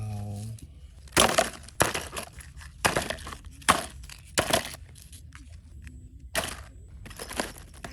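A series of about ten sharp cracks and crunches at irregular intervals, like something brittle being broken or struck by hand.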